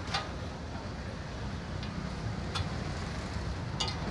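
Steady low rumble of street traffic, with a few sharp metallic taps of a steel spatula on a flat iron griddle (tawa): one just after the start, one in the middle and one near the end.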